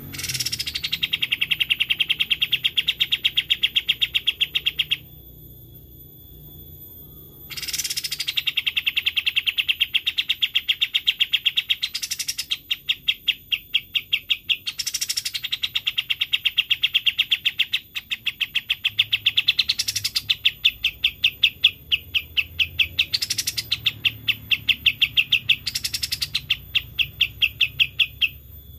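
Kapas tembak birdsong: a series of long trills, each opening with a falling note and running on as a fast, even rattle of about ten notes a second, ending in a short upward flourish. The phrases repeat one after another with brief pauses between them.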